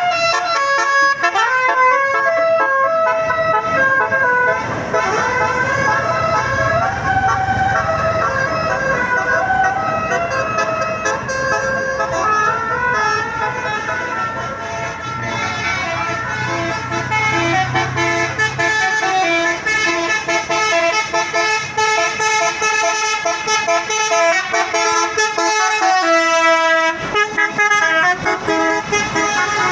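A bus's 'telolet basuri' 12-note musical horn playing a tune, one note after another in quick steps. A low rumble runs under the middle part.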